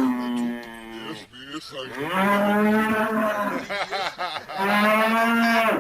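Cattle mooing: three long, drawn-out moos, the first tailing off about a second in, the next two each lasting about a second and a half.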